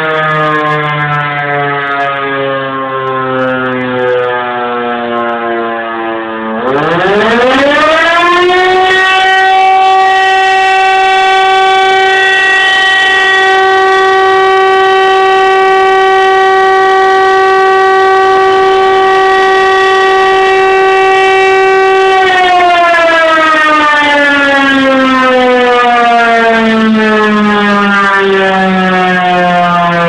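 Emergency alarm siren wailing loudly: its pitch sinks at first, sweeps up quickly about seven seconds in, holds one steady high tone for about thirteen seconds, then slowly winds down again.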